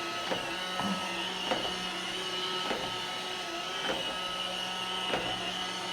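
iRobot Roomba 560 robot vacuum running on the floor: a steady motor hum and whine, with light clicks about once a second.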